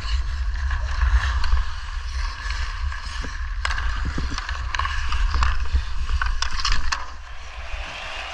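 Ice skates carving and scraping across outdoor rink ice, with sharp clicks of hockey sticks and puck now and then and a steady low wind rumble on the body-worn camera's microphone.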